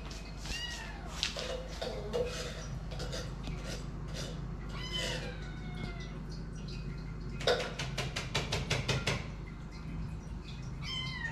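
Hungry kittens meowing over and over for food, short high meows that fall in pitch. Around two-thirds of the way through comes a quick run of about ten sharp clicks.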